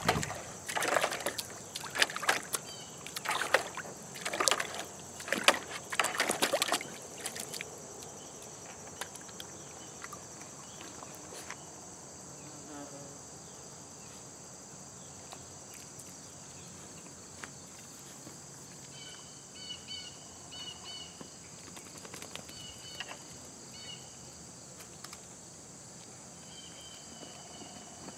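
Several seconds of loud rustling and scuffling bursts as puppies scramble in and out of a fabric dog agility tunnel. After that comes a steady high insect drone, with a few faint chirps near the end.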